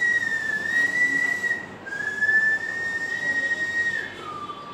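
Whiteboard marker squeaking in a long, steady high tone as it is drawn along the lines of a diagram, with a short break about two seconds in and a drop to a lower squeak near the end.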